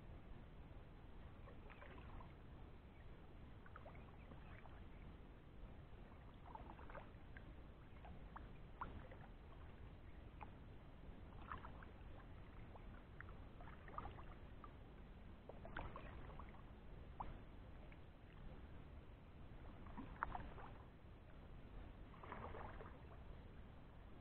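Faint kayak paddle strokes: the blade dipping and pulling through the water, with soft splashes and drips every two to four seconds over a low steady rumble.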